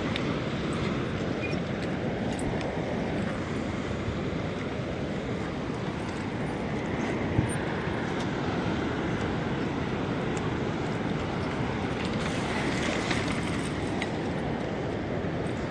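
Wind blowing across the microphone over the steady wash of choppy sea against a concrete pier, with a louder hissing surge of water about twelve seconds in and a single knock near the middle.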